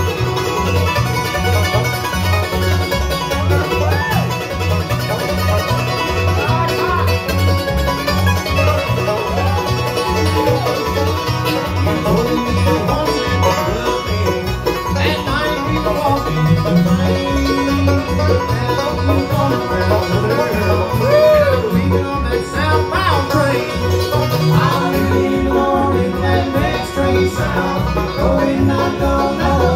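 A bluegrass band playing live on banjo, mandolin, upright bass and guitar, the upright bass keeping a steady beat under the picked strings.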